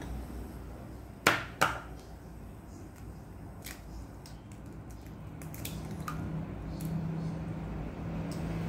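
Two sharp knocks about a third of a second apart, then a few faint clicks and cracks: an egg being tapped on the rim of a small ceramic bowl and its shell pulled open.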